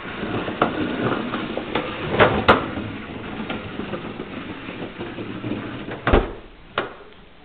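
Little Tikes plastic toy wagon rolling on hard wheels over a tile floor, a rattling rumble. Sharp knocks break through as it bumps into the walls: a loud pair about two seconds in and two more near the end.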